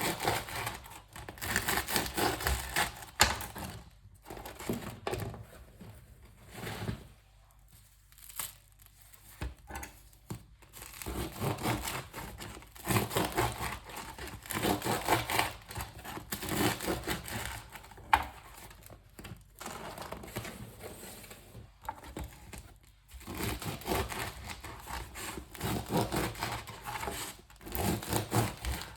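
Crisp crust of a fresh French baguette crackling and crunching in repeated bursts with short pauses, with a quieter stretch about a third of the way in.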